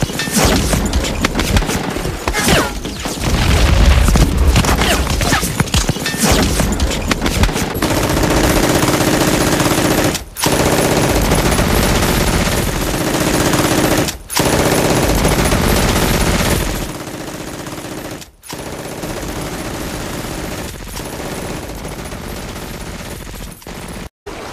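World War II battle sound effects: dense gunfire, with machine guns firing long rapid bursts and rifle shots mixed in. It stops abruptly for a moment a few times and comes straight back.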